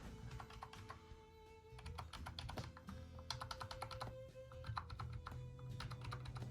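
Typing on a Seenda rechargeable wireless keyboard: a run of quick key clicks, sparser at first and denser from about two seconds in.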